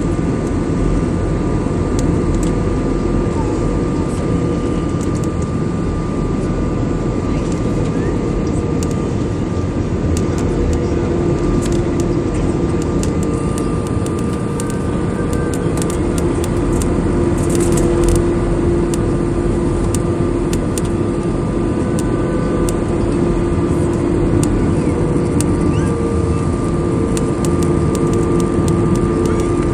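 Steady jet-airliner cabin noise: the engines and rushing airflow as heard inside the passenger cabin, a constant roar with a few steady hums running through it and scattered faint clicks.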